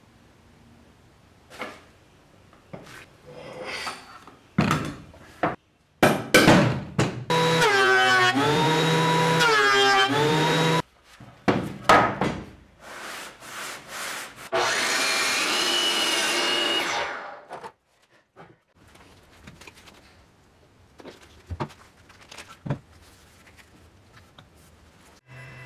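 A power woodworking tool running twice, for about five seconds and then about three. Its motor pitch dips and recovers under load during the first run and rises to a steady whine in the second. Short knocks and clicks of wood and tools being handled come between and after the runs.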